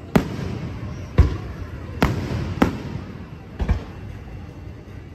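Aerial fireworks shells bursting overhead: about five loud bangs, irregularly spaced roughly a second apart, some sharp cracks and some deeper booms.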